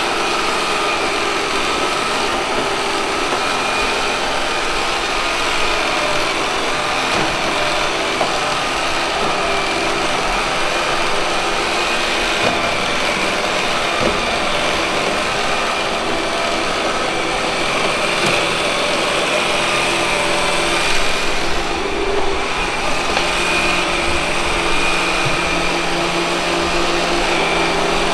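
Robot vacuum cleaner running while it cleans the floor: a steady whir of its suction motor and brushes, with a few small bumps about two-thirds of the way through.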